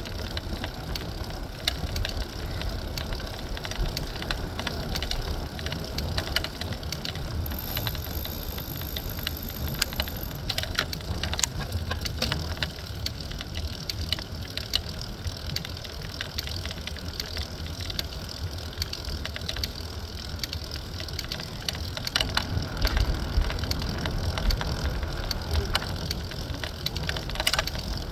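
A city-share bicycle being ridden along a street: a steady low rumble of the tyres and air moving past, with frequent small rattles and knocks from the bike over the road surface. A thin high tone sounds for about three seconds early on.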